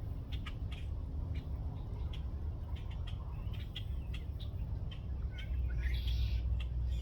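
Birds chirping in many short notes, with a louder, harsher call about six seconds in, over a steady low rumble.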